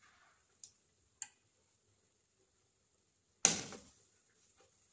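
Spatulas knocking against a frying pan as a pancake is turned: two light clicks early, then one loud knock about three and a half seconds in.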